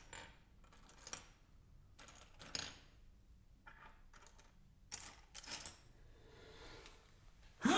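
Loose LEGO plastic pieces clicking and rustling now and then as they are searched through, then one loud plastic clatter near the end.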